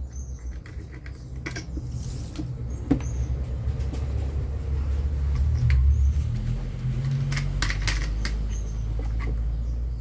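Scratchy plastic clicks and scraping as a table fan's blade cap is screwed on by hand and the reassembled fan is handled, over a low rumble that swells in the middle.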